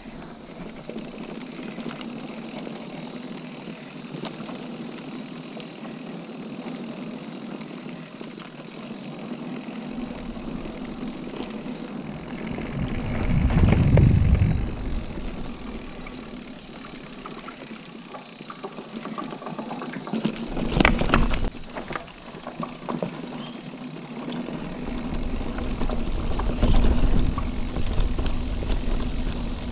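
Mountain bike riding along a dirt singletrack: steady rolling and rattling noise, with low wind rumble on the microphone swelling about halfway through and again near the end, and a few sharp knocks about two-thirds of the way through.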